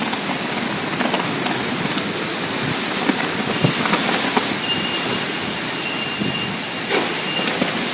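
Hurricane rain and wind making a steady, heavy rushing noise. A faint high steady tone sounds for a few seconds in the middle, and there are a few light knocks.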